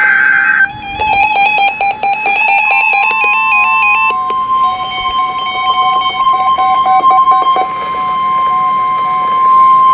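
A brief buzzy burst of data tones, then a few seconds of a plucked, stepping electronic melody, then a steady single-pitch alarm tone of about 1050 Hz that starts about three seconds in and holds on: the NOAA Weather Radio warning alarm tone that comes before a warning is read.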